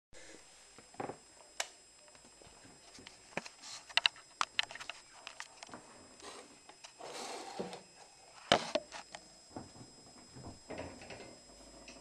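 Kitchen handling sounds: a string of sharp clicks, knocks and clatter as things are picked up and set down, loudest about four and eight and a half seconds in, with a short hissing rush about seven seconds in.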